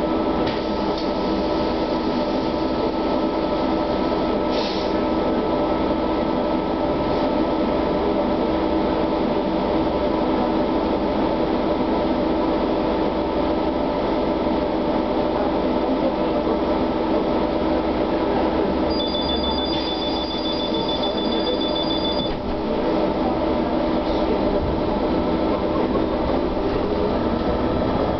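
SOR TN12A trolleybus cabin with the vehicle's electrical equipment humming steadily on several constant tones while it stands. About two thirds of the way in, a fast electronic beeping sounds for about three seconds, and near the end the pitch begins to rise as the traction drive starts to pull away.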